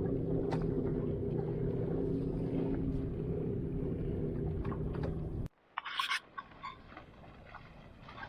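A boat's engine running steadily with a low hum. It cuts off abruptly about two-thirds of the way in and gives way to a quieter hiss with a few brief clatters.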